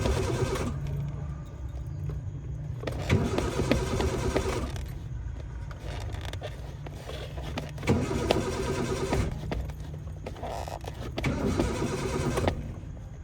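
A car's starter cranking the engine in repeated bursts of a second or two, about every four seconds, with short pauses between, the engine failing to catch: a car that will not start.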